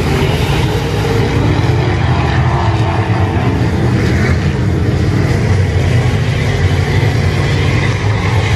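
A pack of IMCA Modified dirt-track race cars with V8 engines running at racing speed around the track, loud and steady.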